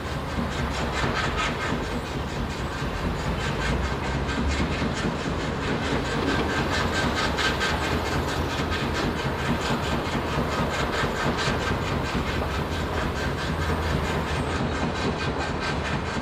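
Industrial machinery running steadily: a constant low rumble with a fast, regular mechanical clatter over it, amid city background noise.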